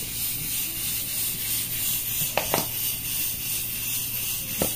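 Pork lard sizzling faintly and steadily in a metal pot as seasoning is poured in, with a few light clicks of a utensil against the pot about halfway through and near the end.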